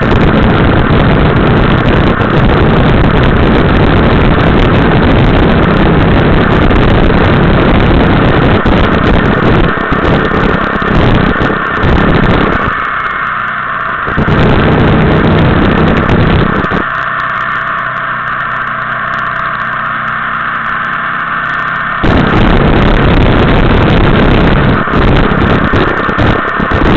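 Motorcycle riding along at speed, heard from the rider's own bike: steady engine noise mixed with heavy wind rush on the microphone. The deep rumble drops out twice, briefly near the middle and for several seconds a little later.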